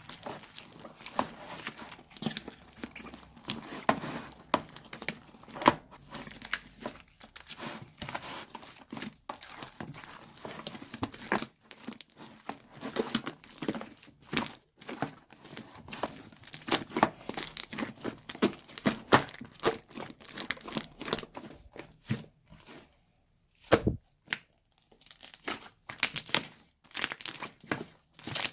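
Slime being squished, stretched and pressed by gloved hands: a dense, irregular run of sticky pops, clicks and crackles. It pauses briefly a little before the end, apart from one loud pop.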